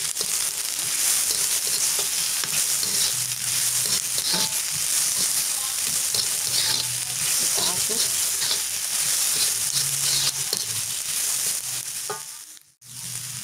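Sliced shallots, garlic, chillies, lemongrass, galangal and ginger sizzling in a little oil in a wok, with a metal spatula scraping and stirring them against the pan. The sizzle drops out briefly near the end.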